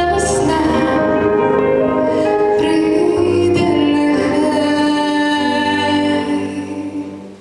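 A female vocalist singing the final long held notes of a song over backing music, fading out near the end.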